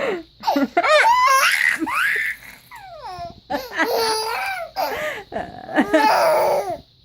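A baby laughing hard in repeated high-pitched bursts, running into longer stretches of laughter.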